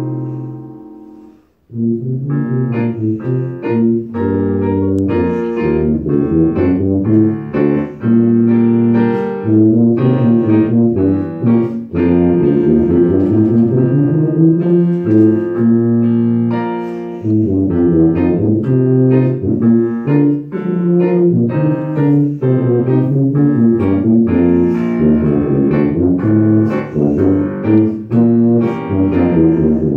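Tuba solo with digital piano accompaniment. A held low note fades out about a second and a half in, and after a short break the tuba and piano carry on with a busy passage of quick, changing notes.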